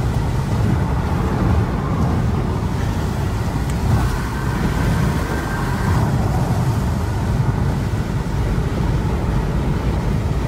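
Car driving at speed, heard from inside the cabin: a steady low rumble of engine and tyre noise on wet road.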